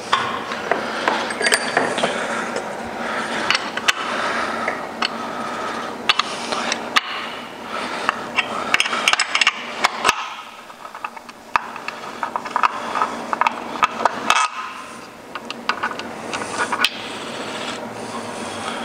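Ratchet wrench clicking in quick runs as a bolt holding the transmission to the steel adapter plate is loosened, with sharp metal clinks between the runs and a couple of short pauses.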